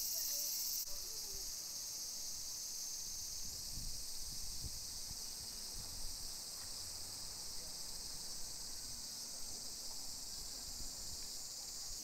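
A steady, high-pitched chorus of insects, thinning slightly about a second in.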